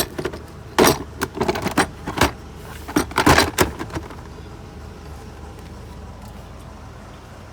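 A quick run of sharp clicks and clattering knocks from hard objects being handled, ending about four seconds in, followed by a steady low hum.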